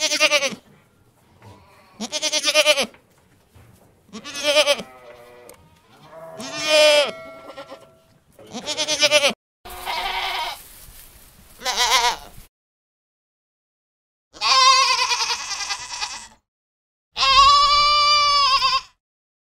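Sheep bleating: about eight separate, wavering bleats, each a second or two long, with the last two longer and steadier. Several start or stop abruptly, as if spliced together from different recordings.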